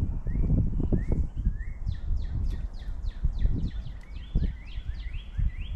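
Wind buffeting the microphone with uneven low rumbles, over birdsong: short rising chirps, then from about two seconds in a quick run of descending whistled notes, about four a second.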